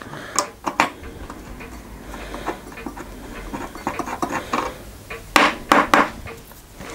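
Small box spanner clicking and scraping on a small nut as it is worked loose from the model steam engine's frame post, metal on metal. A few louder, sharper metallic clicks come about five and a half seconds in.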